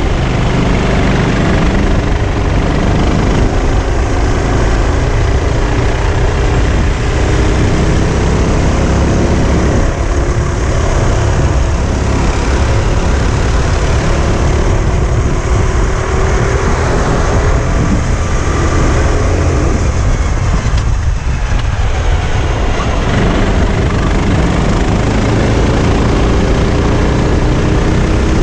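Sodi RT8 rental kart engine heard onboard at racing speed, its pitch rising and falling as it accelerates and slows through corners, over a heavy low rumble on the microphone. The engine note drops briefly about three-quarters of the way through, then climbs again.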